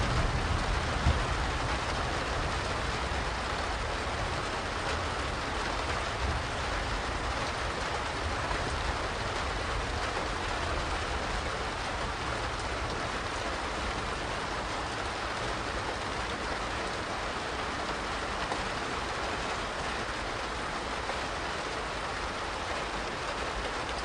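Steady medium rain falling, an even hiss of many drops, with the low rumble of thunder dying away over the first few seconds.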